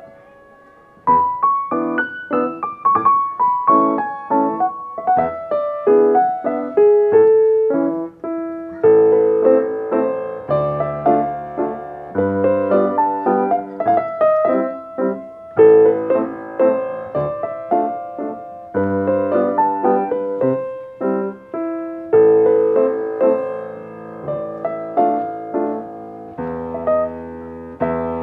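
Solo classical piece on a Steinway grand piano. A phrase ends with a pause of about a second at the start, then the playing resumes, with a melody over low bass notes.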